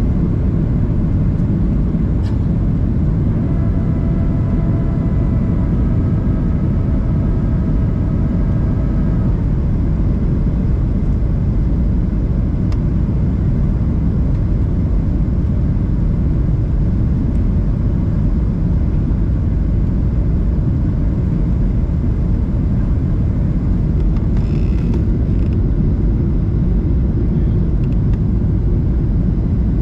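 Steady low rumble of a Boeing 737-800's CFM56-7B engines and the airflow over the airframe, heard inside the cabin at a window seat over the wing during the approach. A faint steady whine rides on top for several seconds about four seconds in.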